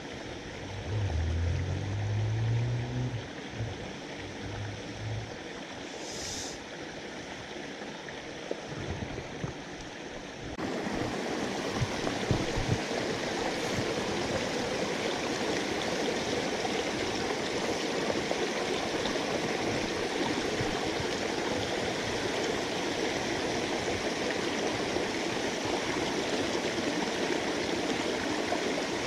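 Mountain stream water rushing over rocks, a steady even rush. A few low thumps come in the first seconds, and about a third of the way in the rush suddenly gets louder and stays that way.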